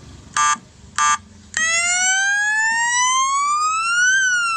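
A three-tone electronic horn sounding its modes: two short beeps, then a siren wail that rises slowly in pitch for about two and a half seconds and starts to fall near the end.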